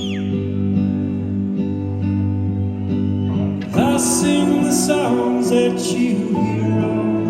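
Indie folk band playing live: sustained guitar chords with singing. The music grows fuller and busier about halfway through.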